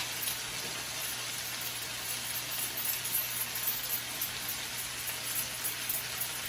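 Food frying in oil in a pan: a steady crackling sizzle with small irregular pops.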